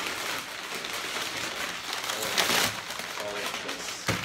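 McDonald's paper takeout bags rustling and crinkling as they are handled and set down on a table, loudest about two and a half seconds in, with a short knock near the end.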